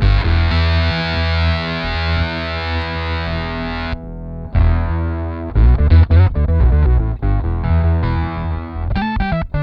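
Electric guitar played through a Stomp Audio Labs Octopus analog octave pedal, with a deep octave-down bass under the notes. A long note is held ringing for about four seconds and dips briefly as the pedal's octave knob is turned. Rhythmic picked notes follow.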